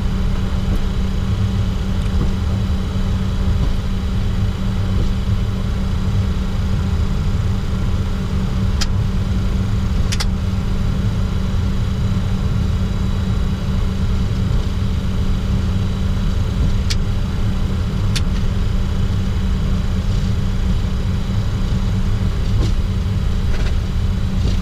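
Steady cockpit noise of a Bombardier Challenger 604 taxiing: its engines running at taxi thrust under a constant rumble and a steady hum, with a few faint clicks.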